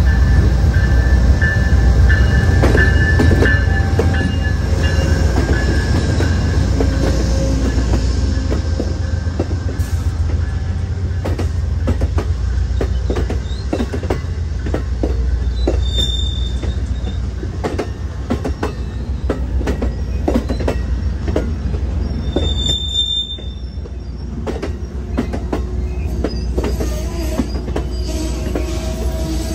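An Amtrak passenger train rolls past, its locomotive passing first with a low rumble and a thin squeal. Then the passenger cars roll by with wheels clicking over the rail joints and two brief high wheel squeals.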